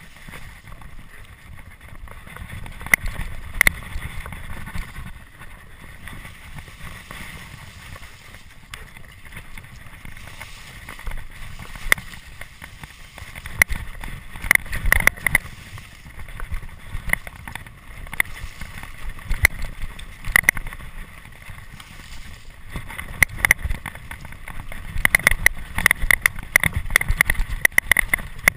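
Santa Cruz Tallboy LTc mountain bike with a Lefty Supermax fork ridden fast down a leafy forest trail: a steady rush of tyre noise and wind on the microphone, broken by bunches of sharp clicks and rattles as the bike runs over bumps, the thickest near the end.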